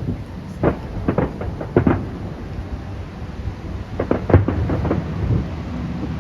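Fireworks bursting overhead in a series of booming bangs over a low rumble. The bangs come singly and in pairs for the first two seconds, then as a rapid flurry about four seconds in.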